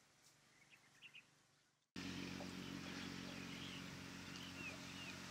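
Small birds chirping outdoors: a few faint chirps at first, then, from an abrupt jump in the background about two seconds in, a steady low hum with more chirps over it.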